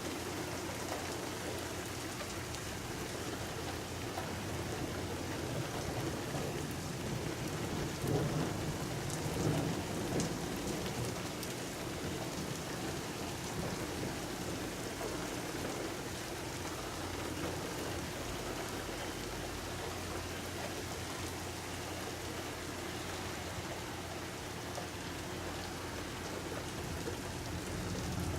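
Steady rain falling, with a rumble of thunder rolling in about eight seconds in and fading over a few seconds.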